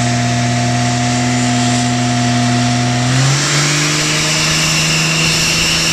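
Diesel Dodge Ram pickup engine running hard at high revs on a chassis dyno, a steady loud drone that steps up in pitch about three seconds in, with a higher whistle joining it.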